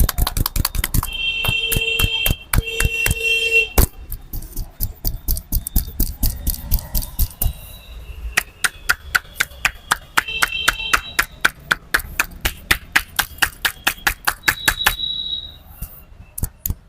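Rapid, even percussive hand strikes of a barber's tapping head massage, about five slaps a second. A high steady beeping tone sounds twice in the first four seconds, about a second each, and briefly again later.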